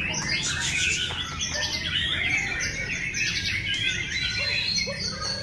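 Several caged white-rumped shamas (murai batu) singing at once in competition: a dense, unbroken tangle of overlapping whistles, trills and rapid chirps, with a low steady rumble underneath.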